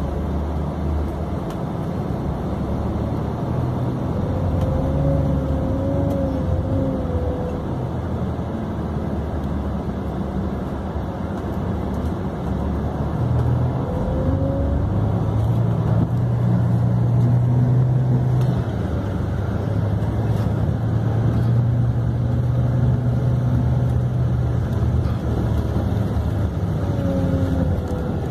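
Bus engine and road noise heard from inside the moving vehicle: a steady low hum that swells louder about halfway through, with brief faint whines now and then.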